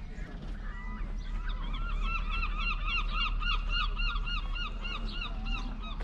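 A gull calling: a long run of rapid, repeated yelping notes, about three to four a second, starting about a second and a half in and going on for around four seconds.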